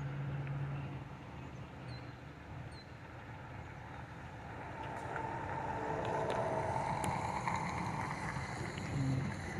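Distant vehicle rumble, steady at first and swelling in the second half.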